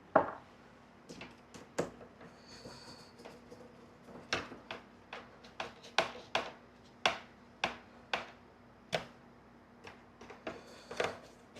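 Screws being tightened by hand into a speaker adapter plate with built-in nuts: a series of light, irregularly spaced clicks and taps.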